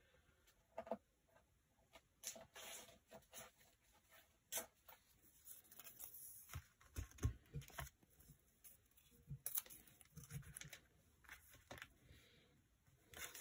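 Near silence, broken by faint scattered rustles and light taps of paper and craft supplies being handled on a cutting mat, with a few soft low thumps around the middle.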